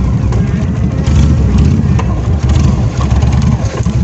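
Honda VTX1300S V-twin motorcycle engine running at a steady, low, even speed, with no clear revving up or down.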